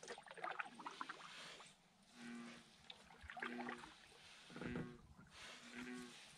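Frogs calling across the water: short, low croaking notes repeated about once a second, with soft splashes of a canoe paddle stroking the water.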